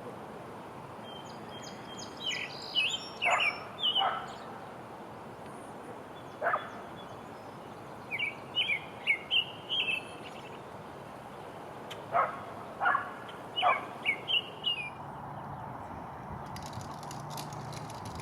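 American robin singing: phrases of quick whistled, chirping notes with short pauses between them, repeated several times.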